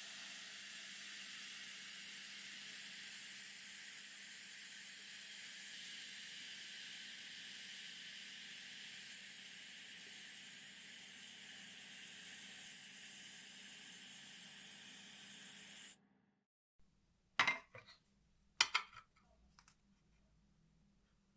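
A steady spraying hiss for about sixteen seconds that cuts off suddenly, followed by a few sharp clicks or knocks.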